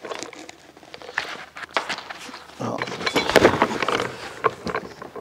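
Knocks and clatter of a portable steel-cutting bandsaw being handled and set down on a wooden workbench: a few scattered knocks at first, then a busier run of handling noise from about halfway.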